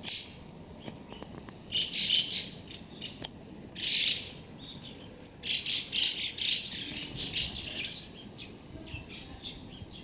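Azure-winged magpies calling: several harsh, rasping calls about half a second long, then a quicker run of short harsh notes from about five and a half to eight seconds in.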